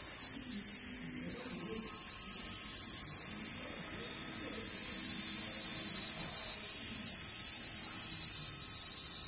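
Richpeace large-format automatic sewing machine running, its sewing head stitching at speed across a clamped frame: a steady, high-pitched buzzing whir.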